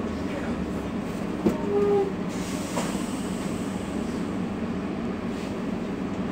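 Steady rumble and hum inside a Trolza-5275.05 Optima trolleybus. About a second and a half in there is a single click, followed by a brief squeak.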